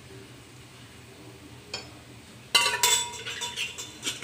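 Metal kitchenware clinking and clattering: a steel ladle knocking against steel vessels, several sharp strikes with a brief metallic ring about two and a half seconds in and one more near the end, after a quiet stretch with a single faint click.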